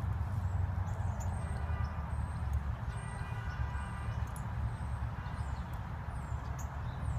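Outdoor ambience: a steady low rumble with short, faint high chirps scattered through it.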